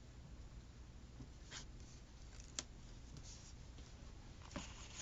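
Quiet handling of paper stickers and scissors over a low room hum: a soft scrape about a second and a half in, a sharp light click about a second later, and another faint tick near the end.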